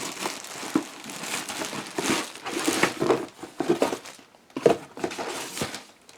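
Packaging being handled, crinkling and rustling in quick crackles, with a brief pause about four seconds in before more crinkling.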